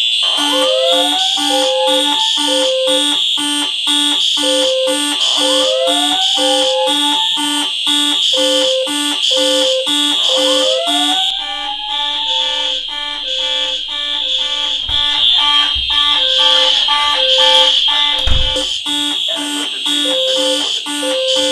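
Many fire alarm horns and speaker strobes sounding together: a steady shrill continuous horn over pulsed lower horn tones in the code-3 temporal pattern. A rising sweep tone repeats about every five seconds and stops about halfway through, and a few low thumps come near the end.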